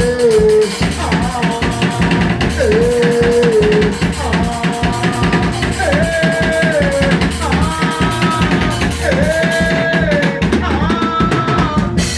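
A band's instrumental intro: a drum kit plays a steady beat with bass drum and snare, under a melody of held notes that slide up into each note and fall away at its end.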